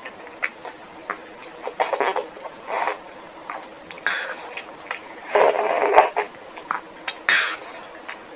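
Close-miked eating: chewing and mouth sounds with irregular clicks and smacks, loudest about five and a half seconds in.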